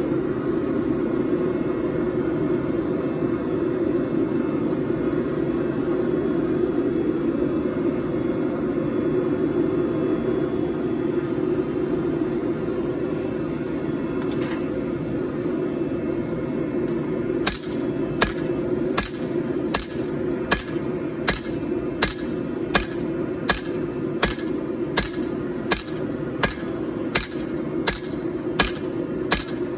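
Steady rushing of the forge for the first half, then a smith's hammer striking a hot 4140 steel billet on the anvil about one and a half times a second, each blow ringing, as the steel is forged flat.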